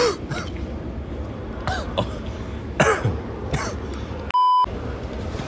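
A man coughing and clearing his throat in several short fits, choking on very spicy Takis Nitro chips. Near the end comes a short electronic bleep, with all other sound cut out under it.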